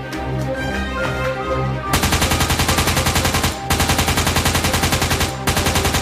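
Rapid-fire shots, about ten a second, in three long bursts starting about two seconds in, over background music. The shots sound like machine-gun fire dubbed over a Nerf blaster fight.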